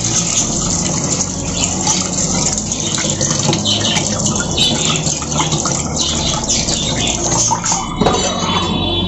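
Tap water running into a steel bowl in a stainless steel sink, splashing as hands rub and rinse cut fish.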